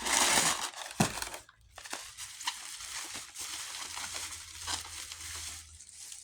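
Packaging being crumpled and crinkled by hand as it is pulled open, with a sharp knock about a second in; loudest at the start, then steadier rustling that fades near the end.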